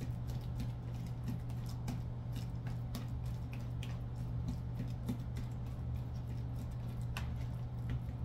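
A fork mashing ripe bananas in a glass bowl: soft squishing with irregular light clicks of the fork against the glass, over a steady low hum.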